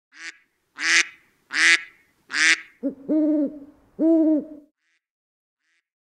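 Owl hooting: four short, harsh calls about three quarters of a second apart, then two longer, clear hoots that rise and fall in pitch.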